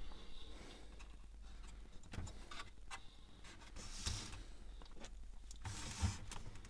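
Light clicks, taps and small knocks of an HP Photosmart C3180 inkjet printer's plastic housing and metal frame being handled while it is taken apart, a little louder about four and six seconds in.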